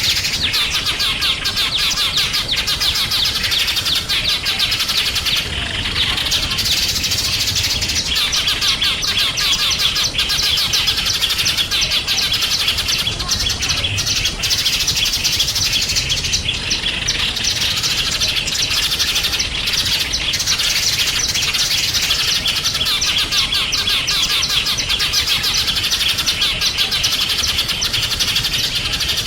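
A dense chorus of small songbirds chirping and twittering rapidly, many calls overlapping without a pause.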